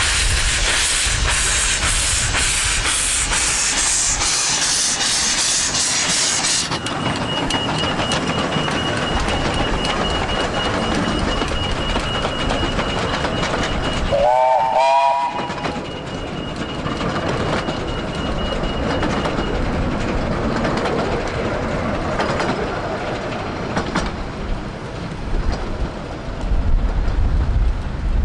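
Miniature-railway steam locomotive and train: steam hissing hard, which cuts off suddenly about seven seconds in. About halfway through the whistle gives one short blast that rises in pitch and then holds. The train then runs on with a rumble that grows louder near the end.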